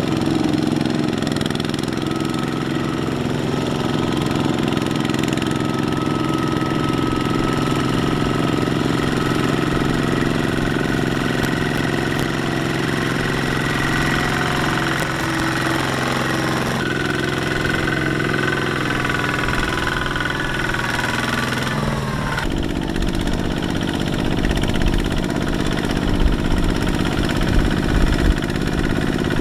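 Single-cylinder diesel engine of a two-wheel hand tractor (power tiller) running steadily under load while it pulls a loaded trailer through mud. The engine note changes abruptly twice, about 17 and 22 seconds in.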